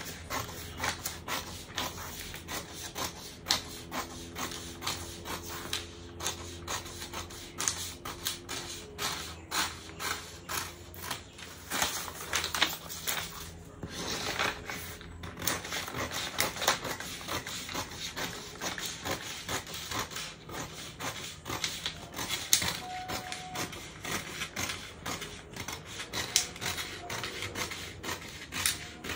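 Paper scissors cutting through pattern paper in irregular snips, with the large sheet rustling and crinkling as it is moved and smoothed.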